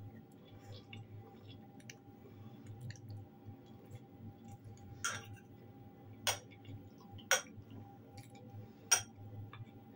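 Metal fork clinking against a ceramic bowl of fried potatoes, four sharp clinks in the second half, with quiet chewing between them over a faint steady hum.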